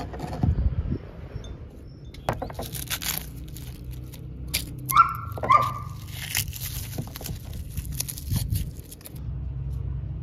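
A kitchen knife chopping herbs on a plastic cutting board, then the papery skins of garlic cloves crackling and tearing as they are peeled by hand. About five seconds in, a dog gives two short yelps half a second apart.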